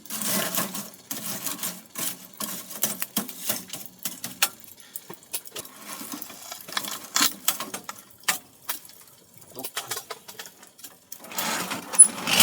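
Wood fire crackling in a wood-burning stove, with irregular sharp pops. Near the end come knocks and rustling as half-cut logs are loaded into the firebox.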